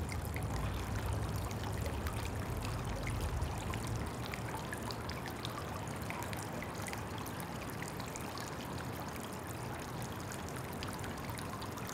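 Water trickling steadily into a garden pond, a constant splashing with a low hum underneath.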